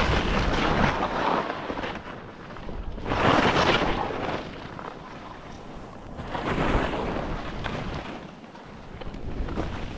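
Nordica Enforcer Free 104 skis scraping and sliding through snow in slow turns: a rushing swish swells with each turn, about three times, with wind rumbling on the microphone underneath.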